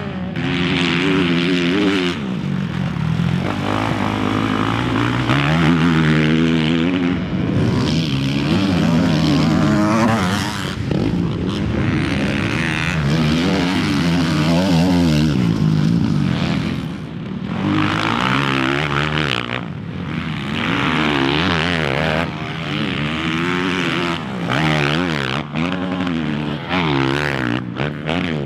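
Kawasaki motocross bike's four-stroke single-cylinder engine revving hard and falling back again and again as the rider accelerates, shifts and rolls off the throttle.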